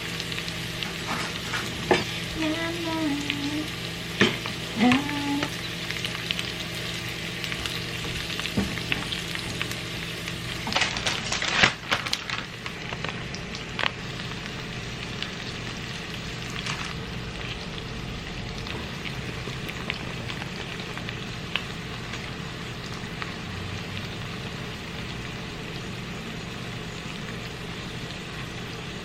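Food sizzling steadily in a hot frying pan, with knocks and scrapes from a utensil stirring it, including a burst of clatter about eleven seconds in.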